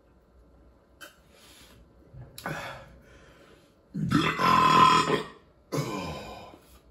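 A man belching loudly for over a second, about four seconds in, right after downing a glass of beer.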